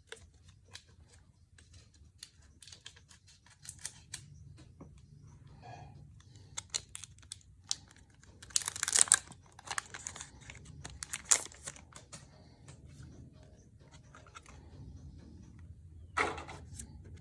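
Foil booster-pack wrapper being crinkled and torn open by hand, among many small rustles and clicks of handling. The loudest rips come about halfway through, with another short rip near the end.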